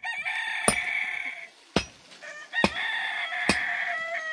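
Rooster crowing twice, the second crow longer and falling in pitch at its end, over sharp knocks repeating about once a second.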